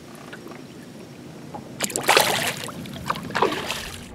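Water splashing as a smallmouth bass is let go over the side of the boat: a loud splash about two seconds in and a shorter one near the end.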